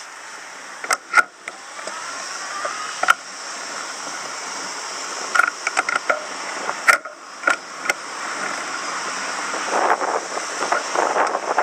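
Riding noise from a bicycle on the road: steady road and wind noise, with a scatter of sharp clicks and knocks, and gusty wind on the microphone building near the end.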